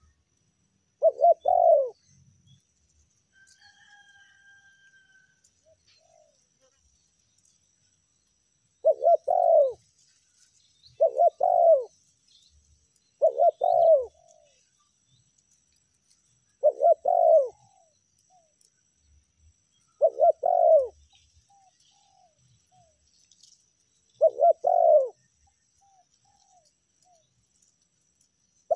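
Spotted dove (tekukur) cooing: seven short phrases, each about a second long, repeated every few seconds. A faint thin whistle from another bird is heard about three seconds in.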